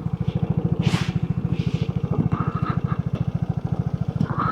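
Single-cylinder engine of a Vespa GTS 300 scooter running with a steady, even low putter, with a brief hiss about a second in.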